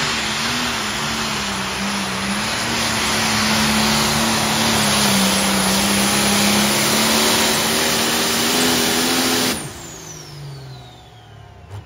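Turbocharged diesel engine of a John Deere pro stock pulling tractor running flat out under load as it drags the sled, a loud steady engine note that dips slightly now and then. About nine and a half seconds in, the throttle is cut at the end of the pull and the engine sound drops away suddenly, leaving a falling whine as it winds down.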